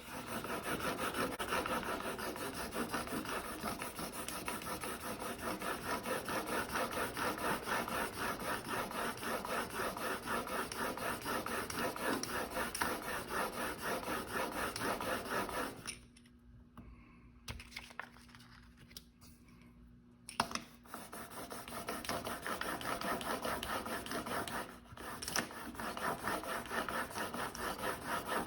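S7 steel single-bevel broadhead held in a KME sharpening jig, stroked back and forth on oiled sandpaper over glass: a steady rhythmic rasping rub, stroke after stroke, stopping for a few seconds about halfway through before the strokes resume. The strokes are grinding the factory convex edge down to a flat 25-degree bevel.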